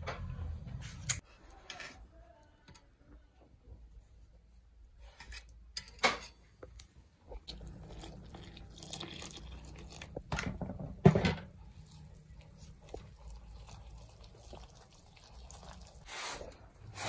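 A hand rubbing and stirring dry flour in a plastic bowl, a soft crunchy rustle, then working in liquid yeast. A few sharp knocks come through, the loudest about 11 seconds in.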